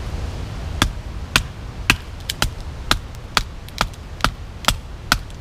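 Batoning ironwood: a wooden baton strikes the spine of a Bark River Bushcrafter knife again and again, driving the blade through the hard wood. The sharp knocks come about two a second, starting about a second in, over a steady low rumble.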